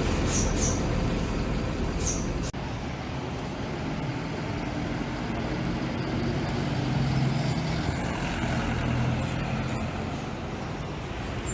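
Diesel engine of a Mercedes-Benz OF-1721 Bluetec 5 city bus running, with a couple of short high squeaks in the first two seconds. The engine picks up through the middle, with a faint rising whine.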